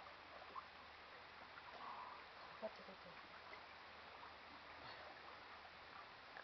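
Near silence on open water: faint lapping of lake water, with two light clicks, one about half a second in and one a little before the midpoint.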